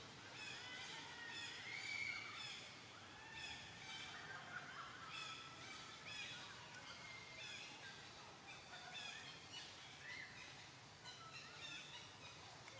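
Faint animal calls: many short, high chirping notes throughout, with a few longer rising-and-falling squealing calls in the first few seconds.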